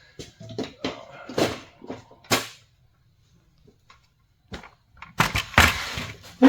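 Old hand tools being lifted out of a wooden tool chest and set down on a table: a run of short knocks and clicks, a pause, then a longer scraping rustle near the end.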